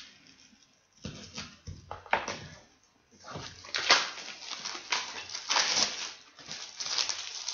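Packaging being handled and opened: a few knocks and scrapes, then dense rustling and crinkling of wrapping from about three seconds in.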